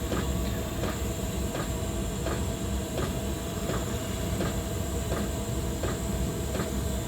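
Steady hiss and rush of a butane gas soldering torch blowing hot air, over the blowing of a diesel heater whose fuel pump ticks regularly, about once every three-quarters of a second.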